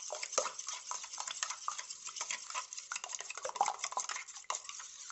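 Metal spoon beating raw eggs in a stainless steel bowl: rapid, irregular clicks and scrapes of the spoon against the bowl.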